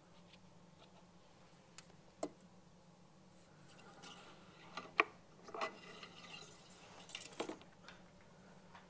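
Steel cleaning rod being worked through a .22 rifle's bore with a dry patch: faint scattered clicks and scrapes of the rod against the action, the sharpest about five seconds in.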